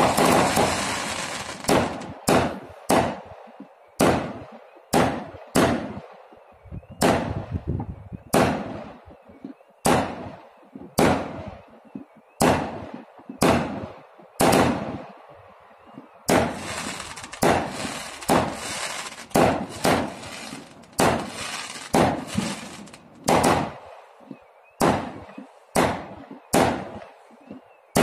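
Aerial fireworks bursting overhead in a long run of loud bangs, about one or two a second, each trailing off in an echo. For a few seconds past the middle a steady hiss fills the gaps between the bangs.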